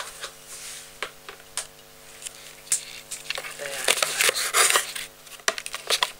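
Handling noise from a handheld camera being moved about and turned around: scattered clicks and knocks, with heavier rubbing and rustling against the mic about four to five seconds in.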